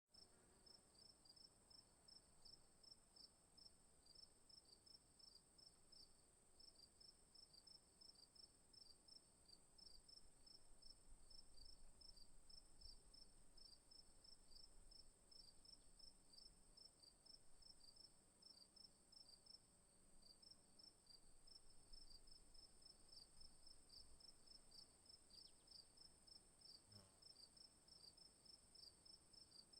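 Crickets chirping faintly: a steady high trill with a rapid, regular pulsing chirp just below it.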